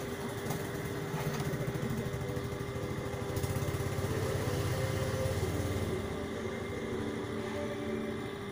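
A small engine running with a fast, even pulse, louder in the middle and easing off near the end, over a steady hum.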